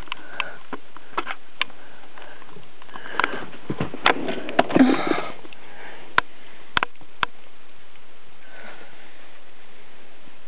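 A frightened person's quick, breathy sniffs and gasps, loudest in a cluster about four to five seconds in, with several sharp clicks and knocks scattered through.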